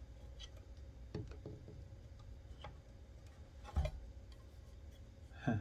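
Scattered light clicks and taps of an old hard drive's casing being worked open by hand, with two louder knocks about four and five and a half seconds in.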